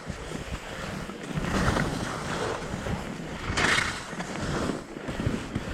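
Snow hissing and scraping under a rider's edges while sliding and turning downhill, with wind buffeting the microphone. Two louder scrapes come about one and a half and three and a half seconds in.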